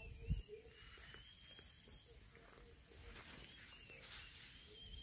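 Faint outdoor ambience with a bird's thin, high, wavering call repeating in short stretches, and a low thump just after the start.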